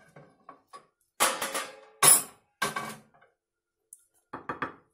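Wooden spatula scraping and knocking against a glass baking dish while ground meat is spread and levelled: light taps in the first second, three loud clattering scrapes between about one and three seconds in, then a few light taps near the end.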